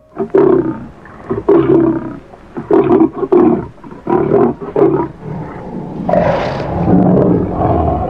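A big cat roaring: a run of short, throaty roars about twice a second, then one longer, drawn-out roar from about six seconds in.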